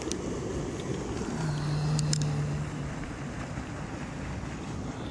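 Steady rush of spillway water with wind buffeting the microphone, a low hum lasting about a second and a half near the middle, and a few faint clicks.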